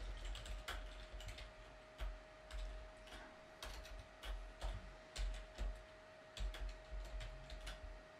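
Typing on a computer keyboard: irregular, quick key clicks with soft thuds, spread through the whole stretch.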